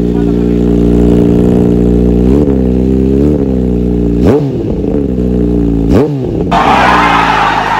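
Kawasaki Z H2's supercharged inline-four idling through an SC-Project aftermarket muffler. It is blipped lightly twice, then revved sharply twice, each rev rising and dropping back quickly. Near the end a loud rushing noise comes in over it.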